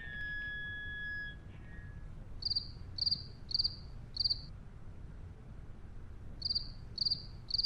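Cricket chirps in two sets of four evenly spaced chirps, the stock comic 'crickets' sound effect for a joke met with silence. Before them, a ringing tone fades out over the first couple of seconds.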